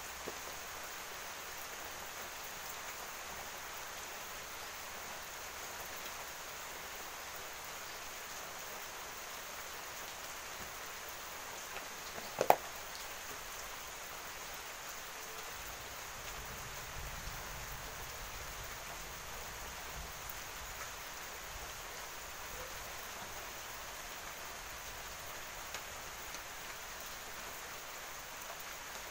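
Steady hiss of rain falling. One sharp knock comes about twelve seconds in.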